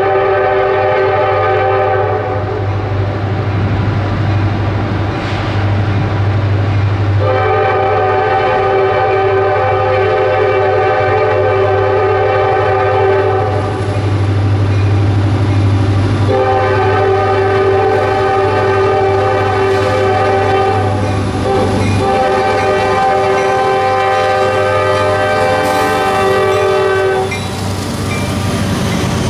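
Freight train's locomotive air horn blowing a chord of several notes in four long blasts, with a short break before the last. A steady low rumble from the train runs underneath.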